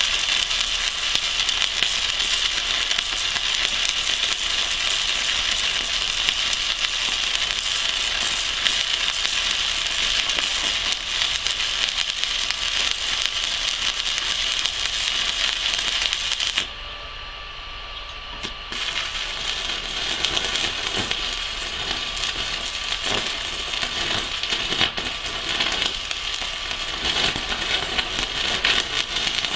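Stick (MMA) welding arc from a small inverter welder running a 4 mm electrode at 200 A, crackling and sizzling steadily. A little past the middle the arc goes out for about two seconds, then is struck again and crackles on.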